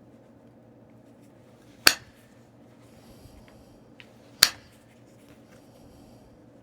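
Two sharp percussion strikes on stone, flint knapping a Tallahatta quartzite point, each with a short ringing tail and about two and a half seconds apart, with a few faint clicks of stone being handled between.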